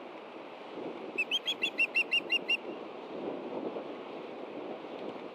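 Osprey calling a quick run of about nine short, high whistled chirps, about seven a second, over a steady hiss of wind and rain.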